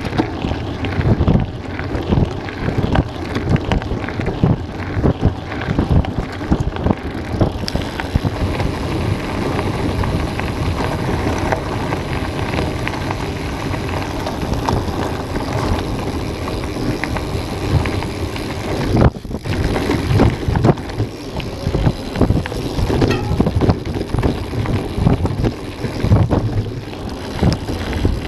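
Mountain bike rolling over a loose gravel and stone track, with many small knocks and rattles from the bike and wind buffeting the microphone. The noise dips briefly about two-thirds of the way in.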